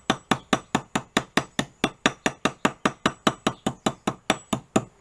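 Seaming hammer striking copper sheet on an anvil in a quick, even series of metallic blows, about five a second, with a brief pause near the end, working the curve of a round copper part.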